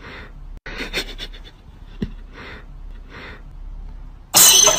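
A cat hissing in several short breathy puffs, with a couple of sharp clicks in between. Loud background music starts near the end.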